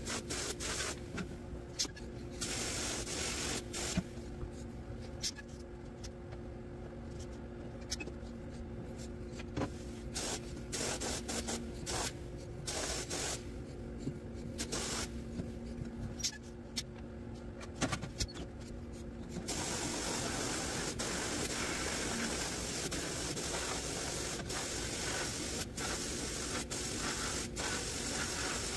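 Sandblast cabinet blast gun spraying abrasive to strip old rust and paint from bare steel mower parts: a hiss that cuts in and out many times as the trigger is pulled and let go, then runs without a break through the last third. A faint low hum and scattered ticks of grit striking sit underneath.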